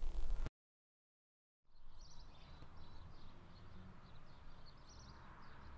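A loud electronic buzz cuts off abruptly about half a second in, then total silence for about a second. Quiet room ambience then fades in, with faint birds chirping.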